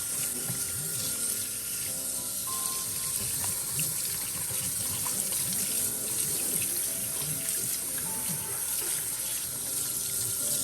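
Hot water running steadily from a kitchen tap into a stainless steel sink, rinsing the disposal cleaner's foam and residue down the drain.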